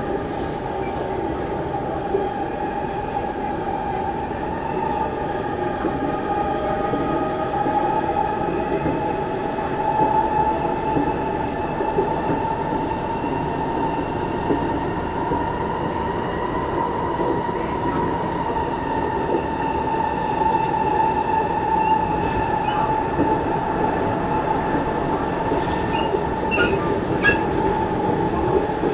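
Singapore MRT train running between stations, heard from inside the carriage: a steady rumble with a high whine that drifts up slightly around the middle and settles back, and a few faint clicks near the end.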